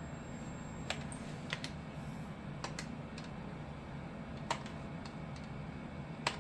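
Keys and buttons on an ultrasound machine's control panel clicked during fetal measurements: a handful of sharp clicks at irregular intervals over a steady low hum.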